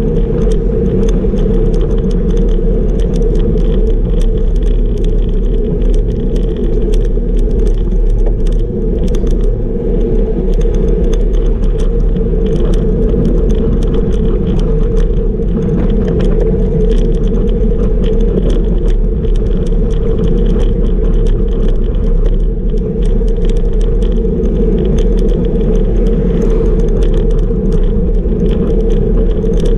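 Steady wind rush on the microphone of a camera riding on a road bicycle at about 35 km/h, with tyre and road noise from the asphalt underneath and a faint scattered crackle.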